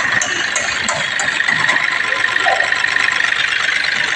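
Turbo-diesel car engine idling with a steady high-pitched whine from the turbocharger. The mechanic suspects a turbo fault, alongside a boost control deviation code that set the check-engine light.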